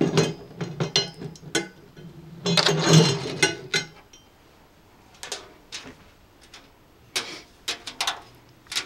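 Metal cart parts being handled: the steel tube frame scraping and rattling against the table as it is turned, at the start and again for about a second and a half from two and a half seconds in, then scattered light clicks and knocks as the metal mesh tray is handled.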